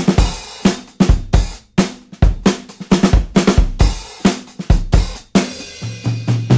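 Background music: a drum kit playing a rock beat on its own, with kick, snare, hi-hat and cymbal hits. A low held bass note comes in near the end.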